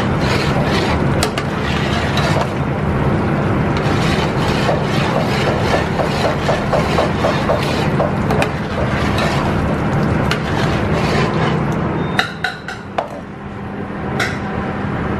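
A metal spoon stirring a large stockpot of boiling liquid, scraping and clinking against the pot in a quick run of strokes about three a second in the middle, over a loud steady roar and low hum of the kitchen. About twelve seconds in the roar drops away and a few sharp knocks follow.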